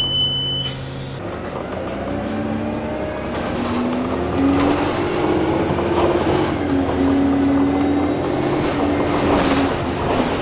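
Orion VII Next Generation hybrid-electric city bus pulling away: a short high beep at the start, then the drive's whine climbing in pitch as the bus accelerates, settling lower and holding, over engine and road noise.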